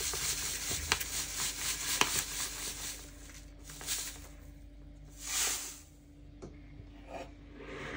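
Granulated sugar poured from a bag into a bowl of egg whites: a steady hiss with a few light ticks for about three seconds, then another brief hiss about five seconds in.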